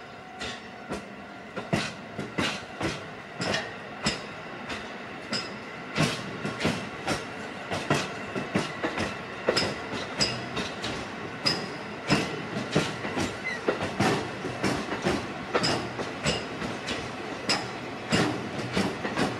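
Train wheels clicking over rail joints on a slow-moving train, the EF81 locomotive hauling the E531 set. The clicks come irregularly, sparse at first, then closer together and louder from about six seconds in.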